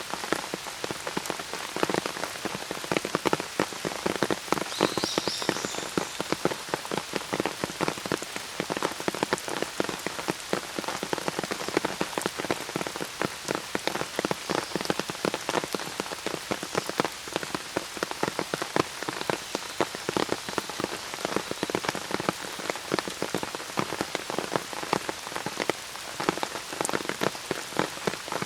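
Steady rain falling, with a dense run of close, sharp drop hits.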